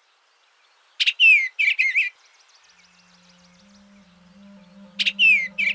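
Eastern bluebird singing: two short, quick warbled phrases about four seconds apart. A low held musical note comes in softly under it about halfway through.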